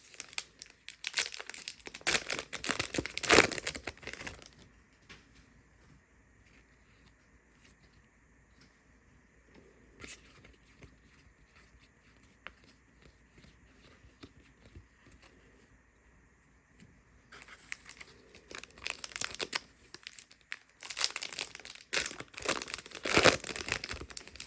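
Foil trading-card pack wrappers being torn open and crinkled, in two noisy spells of a few seconds, one at the start and one near the end, with a quiet stretch between.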